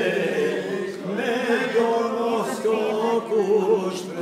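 A group of men singing a chant together, holding long drawn-out notes with a slight waver. A single sharp click comes near the end.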